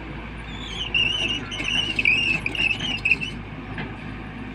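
Tata Hitachi EX200LC excavator running with a steady low rumble, over which a high, wavering squeal starts just under a second in and lasts about two and a half seconds.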